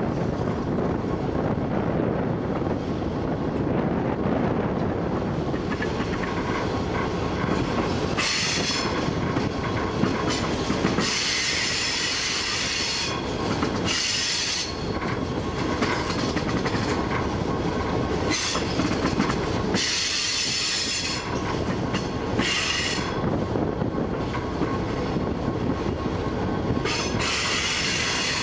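Model electric train running on metal track, heard from a camera riding on the train: a steady rattling rumble of motor and wheels, with high-pitched wheel squealing that comes and goes several times in the second half.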